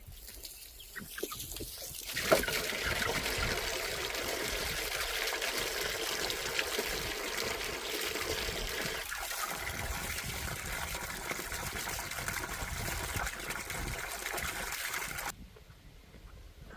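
Water pouring steadily into a chicken waterer, starting suddenly about two seconds in and cutting off suddenly near the end.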